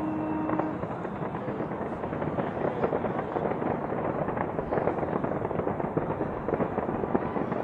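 Large fireworks display: a dense, unbroken crackle of many overlapping bangs and pops, with no pause.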